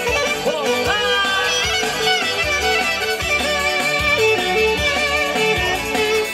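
Instrumental break in an Albanian folk dance song (valle), with no singing. A lead melody with sliding, ornamented notes runs over a steady rhythmic bass beat.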